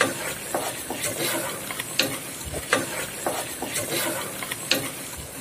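A wooden spatula stirring and scraping thick, sizzling masala in an aluminium pressure cooker, its strokes clacking against the pot every half second or so over the frying hiss. The onion-tomato masala is being fried down to a thick paste.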